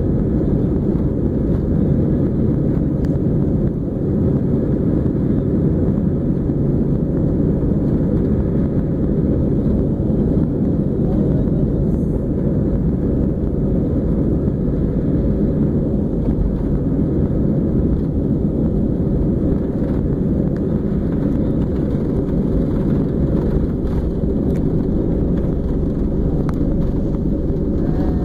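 Steady low rumble inside a jet airliner's cabin as the plane rolls along the runway, engine and wheel noise together.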